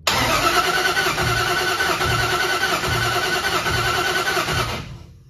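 V8 engine cranked over on its starter with the spark plugs out for a compression test, the starter whining steadily with a low chug a little under once a second, then stopping just before the end. The gauge on this cylinder comes up to about 160 psi, a healthy reading.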